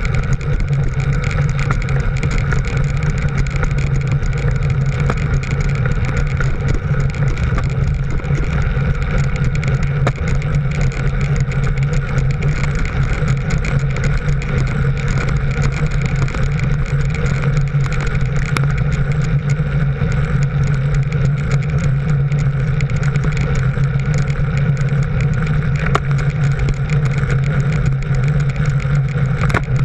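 Motor vehicle engine running with a steady, unchanging drone at constant cruising speed, mixed with wind and road noise.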